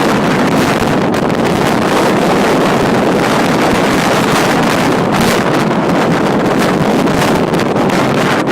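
Strong gale buffeting the microphone: loud, steady wind rumble with gusting flutter.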